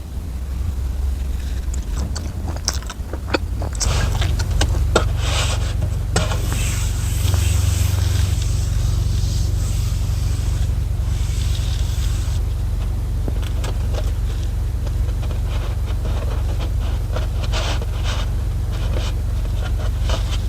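Things being handled at close range: small clicks and knocks, with a stretch of scraping and rustling from about six to twelve seconds in, over a steady low rumble.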